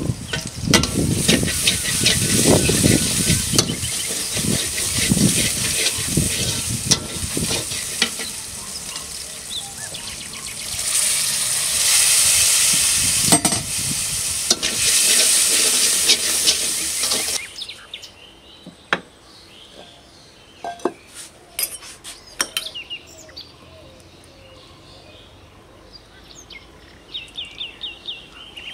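Food sizzling in hot oil in a pan, with a spatula stirring and scraping against the pan. The sizzle cuts off suddenly a little over halfway through, leaving only scattered light clicks and knocks.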